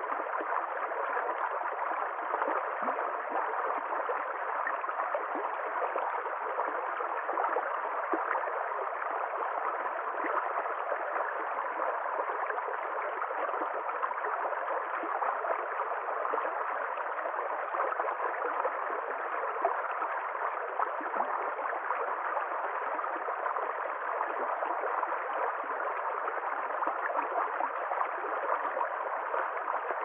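Shallow rocky stream running over stones, a steady, even rush and gurgle of water that does not change.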